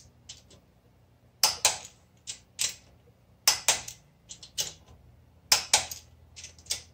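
Ratchet wrench clicking in short runs of two or three sharp clicks, about one run a second, as a rocker-shaft support nut on a BMW R90/6 airhead cylinder head is being retightened.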